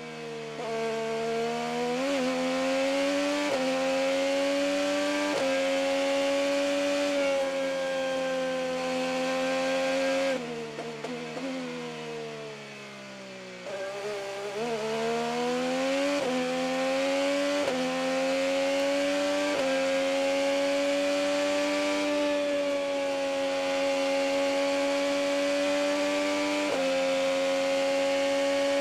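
Chevrolet 2.2-litre twin-turbo V6 IndyCar engine heard onboard at full throttle on a flying lap, its pitch climbing and then dropping sharply at each quick upshift, every second or two. About ten seconds in it goes quieter and falls in pitch under braking, with a quick run of downshift blips. It then climbs back up through the gears and holds high revs with one more upshift near the end.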